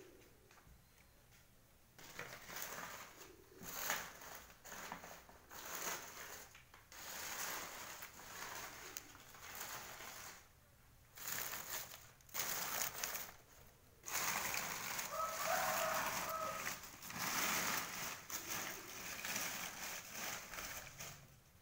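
Dry banana leaves rustling and crackling in irregular bursts as they are handled and packed into a cricket-rearing box.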